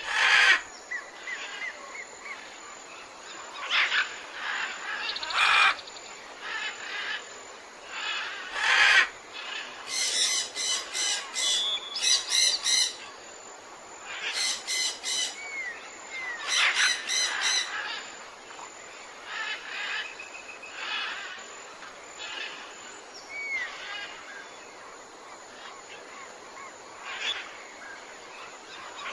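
Birds calling and chirping: scattered short high calls and a few rapid series of repeated notes, over a faint steady background hiss.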